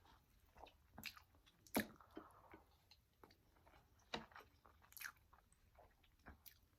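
A person chewing food close to the microphone, with scattered soft wet smacks and clicks of the mouth.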